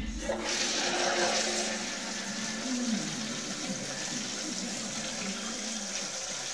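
Foot-pedal toilet flush valve pressed by foot, releasing water that rushes steadily through the pipe into the bowl from a moment in.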